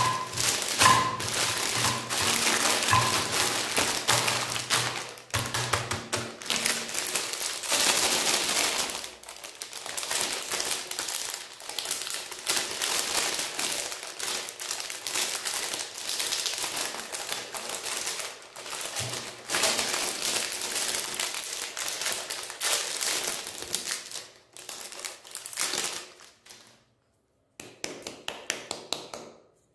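Foil-and-plastic Magnum ice cream bar wrappers crinkling and rustling as they are torn open and peeled off the bars. A quick run of light taps comes near the end.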